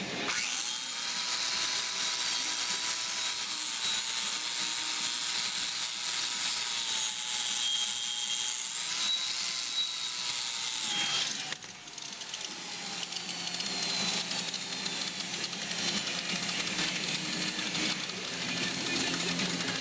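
MIG welder arc on a hydraulic cylinder, a steady crackling hiss that breaks off briefly about eleven seconds in and then goes on more softly.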